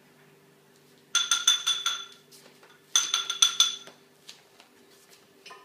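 Rapid metallic jingling in two bursts of about a second each, a second apart, typical of a small bell or tag shaken as a puppy spins.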